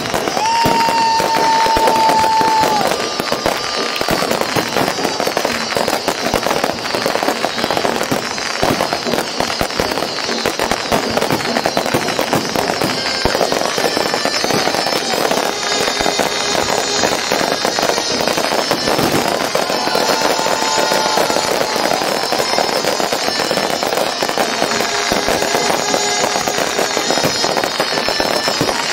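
Fireworks display: a dense, continuous crackling of firework effects. A held whistling tone comes in just after the start and lasts about two and a half seconds, and shorter whistles come in about twenty seconds in.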